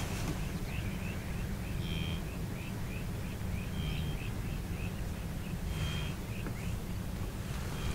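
Birds calling over a steady low rumble: a quick run of small chirps about three a second, and a clearer two-toned call repeated roughly every two seconds.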